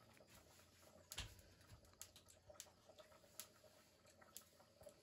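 Near silence with faint, irregular small clicks and taps, one a little stronger about a second in, over a faint steady hum.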